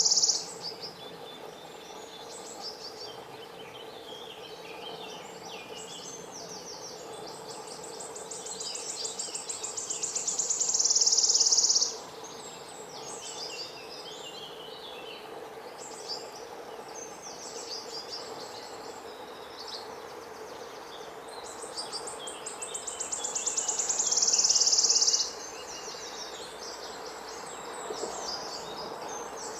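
Birdsong outdoors: a high, fast-pulsing trill swells louder over about four seconds and cuts off suddenly, twice, with scattered short chirps between, over a steady low hum.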